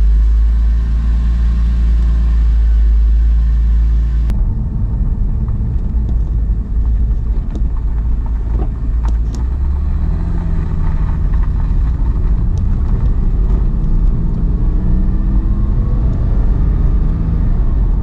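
Inside the cabin of a 2002 Porsche 911 Carrera 4 (996) driving slowly: its rear-mounted 3.6-litre flat-six runs at low revs under a steady road and tyre rumble. The engine note rises gently in the second half, and a few faint clicks come from the road around the middle. No suspension clunk is heard, the clunk that the freshly replaced front control arms were fitted to cure.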